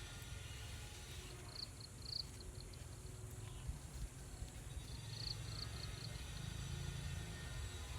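Runs of short, high-pitched insect chirps, one run about a second and a half in and another about halfway through, over a steady low rumble.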